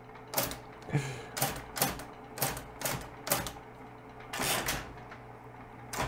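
Bendix G15 electric typewriter being typed on, its motor humming steadily under about ten separate mechanical key-and-hammer clacks. The type hammers swing but fall short of the platen, so there is no hard strike on the paper, and he calls it less noise than expected. The cause turns out to be the impression lever set all the way to F.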